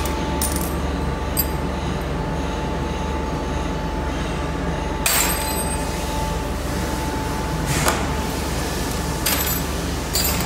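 Steady machinery hum with a faint high tone, broken by several sharp knocks. The loudest knock is about five seconds in and rings briefly, and others come near eight seconds and towards the end.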